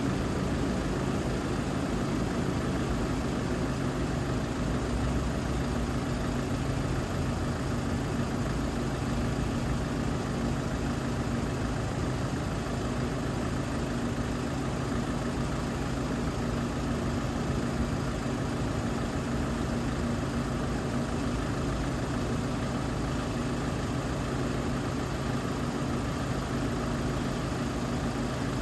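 A vehicle engine idling steadily, with an even low hum throughout.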